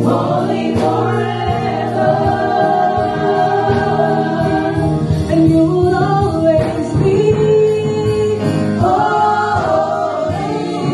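Church choir singing a Christian worship song, several voices holding long notes together.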